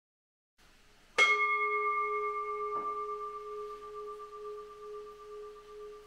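A Buddhist bowl bell (rin) on a shrine altar, struck once about a second in and ringing on in a long, slowly fading tone. A faint soft knock sounds a little later.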